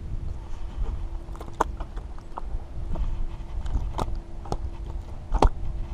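A few sharp knocks and clicks, about three louder ones with the loudest near the end, over a steady low rumble.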